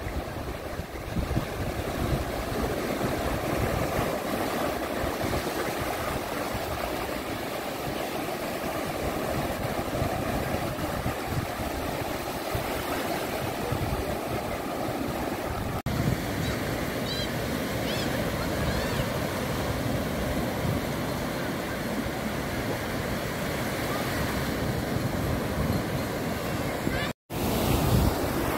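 Small waves breaking and washing up on a sandy beach in a steady surf wash, with wind gusting on the microphone.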